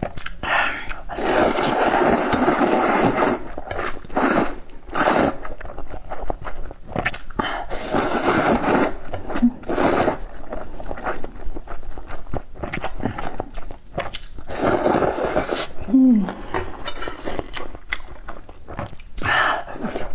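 Rice noodles in soup being slurped up in several long, loud sucks a few seconds apart, with chewing and wet mouth smacks between them.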